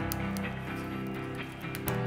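Background music with sustained chords that change about the start and again near the end. Over it come a few light clicks from cables being pressed into a plastic cable carrier.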